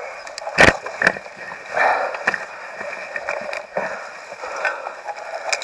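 Rustling, scraping and scattered knocks of tree branches and a stuck dirt bike being wrestled by hand, with a sharp knock about half a second in.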